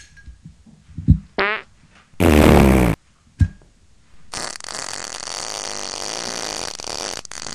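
A short rising squeaky fart, then a loud buzzing fart lasting under a second, with a couple of soft thumps around them. A few seconds later a steady hiss begins as a lighter is lit.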